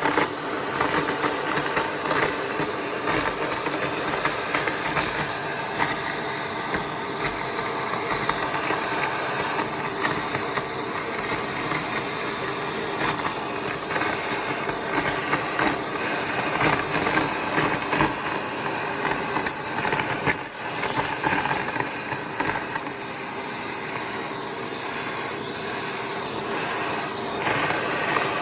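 Vacuum cleaner motor running steadily with a high whine, its crevice tool sucking up debris with irregular crunches and clicks.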